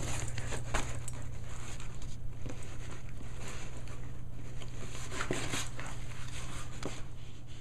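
Dog scratching and chewing at a cardboard box: irregular crackling and scraping of cardboard, over a steady low hum.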